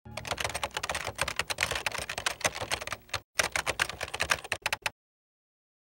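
Typing on a computer keyboard: a fast, continuous run of keystrokes with a short pause about three seconds in, stopping about five seconds in.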